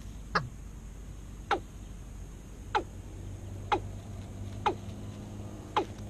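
Watercock lure calls: a short, sharply falling note repeated about once a second, six times.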